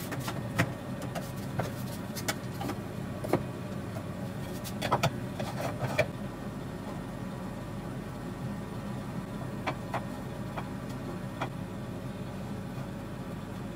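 Hard wooden dowels knocking and a plastic bar clamp clicking as a dowel is handled and clamped, a run of sharp knocks in the first half, then a few lighter clicks later. A steady low hum runs under it.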